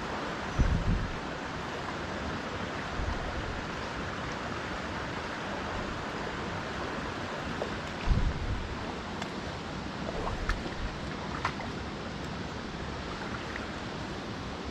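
Steady rush of a mountain stream's flowing water. Two brief low thumps break in, about a second in and again about eight seconds in.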